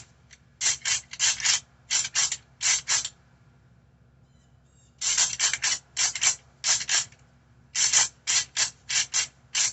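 Deer rattle bag shaken and ground together in short, clattering bursts in groups of two to four, imitating bucks' antlers clashing in a fight. It pauses for about two seconds in the middle, then starts again.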